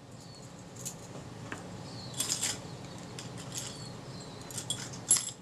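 Small metal lens parts clicking and rattling lightly as they are picked out of a heap by hand, a few scattered clicks with a small cluster a little past two seconds in and another near the end.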